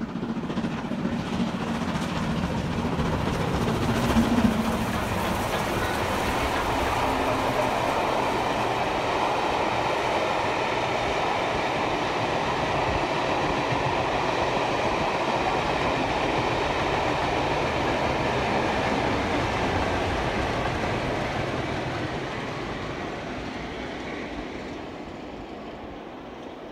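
Steam-hauled passenger train passing by. The noise builds quickly to a peak about four seconds in, holds steady, then fades over the last several seconds as the train draws away.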